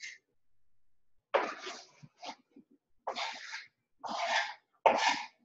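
Spatula stirring chopped bell peppers in a metal stockpot: five or six short scraping, rustling strokes, the last ones closest together.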